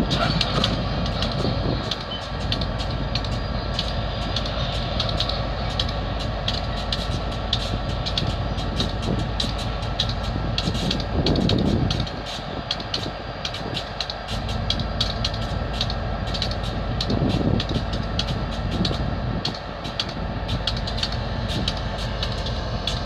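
Two diesel switcher locomotives running as they move slowly along the track with tank cars in tow: a steady engine drone with several held tones, and light ticking over it.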